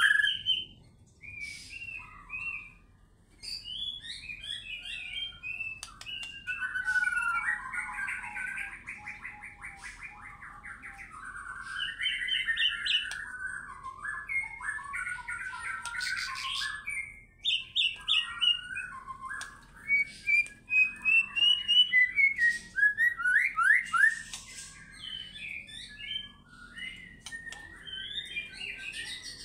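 White-rumped shama (murai batu) singing a long, varied song of clear whistles, fast trills and chattering phrases, with hardly a pause. The loudest, quickest sweeping phrases come past the middle.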